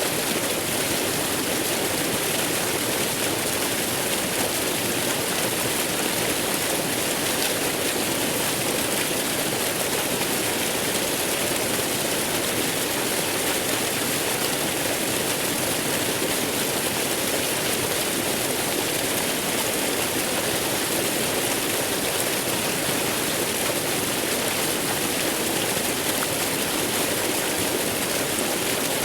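Waterfall rushing, a steady, unchanging hiss of falling water.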